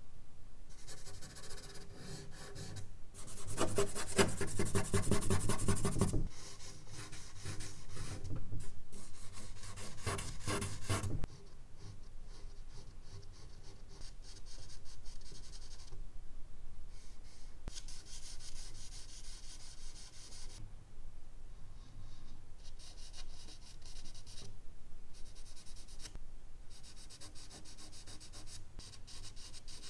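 Hand and fingers rubbing and smudging charcoal across medium-surface drawing paper, mixed with scratchy strokes of a charcoal stick. The rubbing is heaviest and loudest in two stretches in the first half, then lighter, shorter strokes follow with brief pauses.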